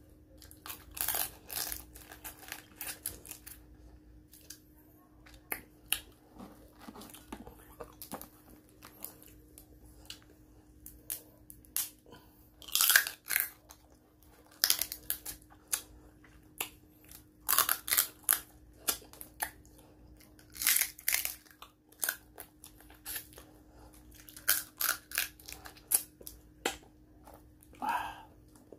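Close-up eating sounds: chewing, and fried blue crab shell and legs crunching and cracking as they are bitten and broken apart by hand, in irregular sharp crunches and smacks, loudest about 13 seconds in.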